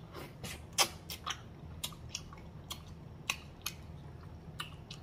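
Close-miked chewing of turkey neck meat: irregular sharp mouth clicks and smacks, the loudest about a second in.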